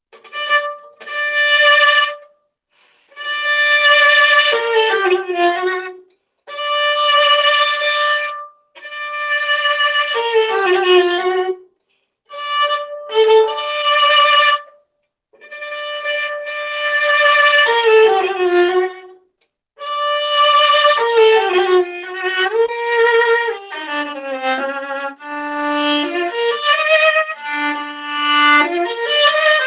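Solo viola, bowed, playing a series of phrases with short breaks between them: mostly a long held note that steps down at the end, the later phrases lower and moving more. The sound is slightly crunchy, from the microphone.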